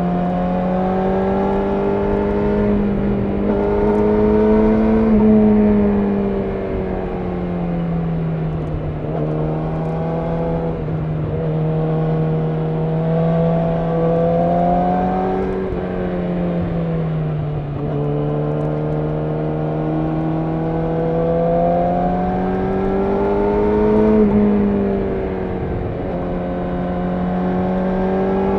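Yamaha YZF-R6 inline-four engine running under way. Its pitch climbs gradually and drops back several times as the throttle and gears change, over low wind and road noise.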